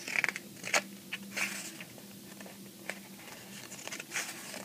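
Glossy pages of a large photo book being turned and handled: irregular paper rustling and sliding with a few sharp clicks.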